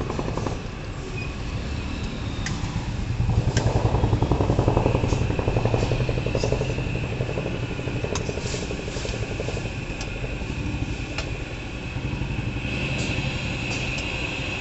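A metal ladle stirs and scrapes in a wok on a gas burner, with scattered sharp clinks against the pan. Under it runs a steady low engine-like rumble that swells for a few seconds starting about three seconds in.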